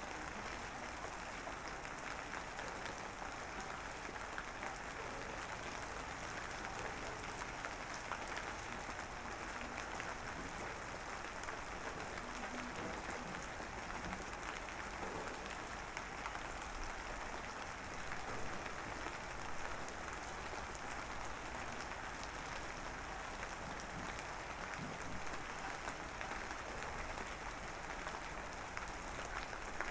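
Light drizzle falling steadily, a fine even patter of many small raindrops with scattered distinct drop ticks.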